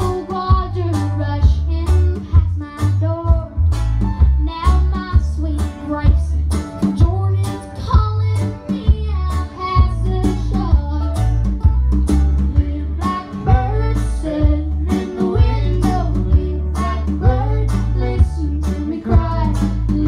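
Live country-bluegrass band playing: a girl sings lead over plucked upright bass, a small acoustic guitar, mandolin and a snare drum struck in a steady beat.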